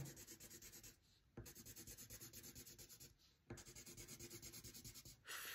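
Coloured pencil scribbling back and forth on paper to fill in boxes of a bar graph: faint, quick, even strokes, about six or seven a second, in three runs with short pauses about one second in and just past three seconds in.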